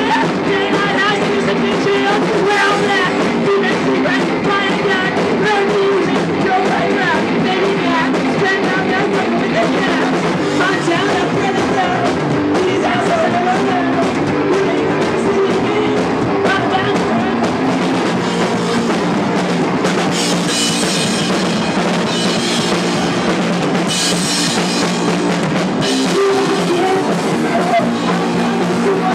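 Rock music with a full drum kit and a steady beat; twice near the end the high end brightens for a couple of seconds.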